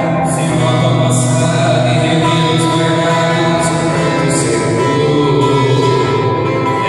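Sertanejo song performed live: a man singing into a microphone over strummed acoustic guitar.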